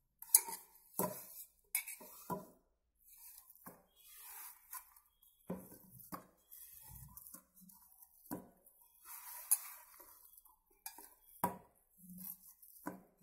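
Hands kneading a maida dough in a stainless steel bowl: irregular knocks and clinks as the dough and hands strike the metal bowl, with softer rubbing noises between.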